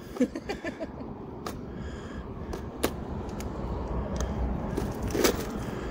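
Scattered knocks and clicks from fishing gear and boat fittings being handled in a small boat, over a low steady rumble; the loudest knock comes near the end.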